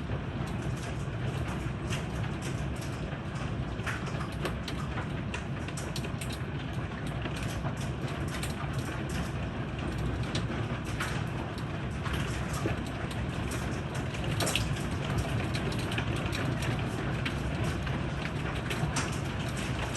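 Heavy thunderstorm rain pouring steadily, with many sharp ticks of drops striking hard surfaces scattered throughout.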